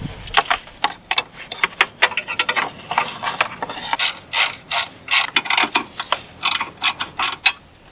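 Socket ratchet clicking in quick runs as the bolt of a car battery's hold-down bracket is tightened, the clicks getting louder from about four seconds in.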